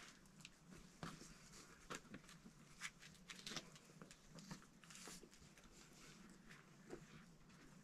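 Faint, scattered scuffs and taps of a boulderer's hands and rubber climbing shoes on granite as he moves across the rock, over near silence.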